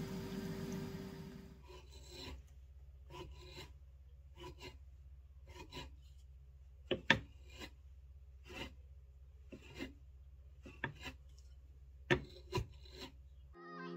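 Washed fleece combed through a steel-tined wool comb clamped in a wooden combing pad: a run of short rasping strokes, each as the fibre is drawn through the tines, with a few sharper strikes around seven and twelve seconds in. It opens with the steady whir of a spin dryer, which cuts off about a second and a half in.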